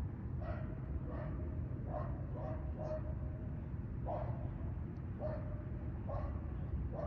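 An animal's short, high yelps, about nine of them at uneven intervals, over a steady low rumble.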